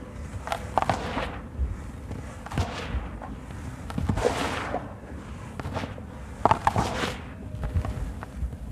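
Dry sand-cement mix crunching and crumbling in the hands, then pouring back onto the pile as a gritty hiss. It comes in several separate bursts a second or two apart, each with crackly snaps as lumps break.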